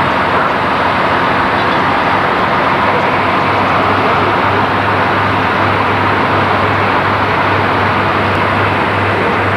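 Steady, unbroken engine drone with a low hum, from a boat's engine running alongside the quay.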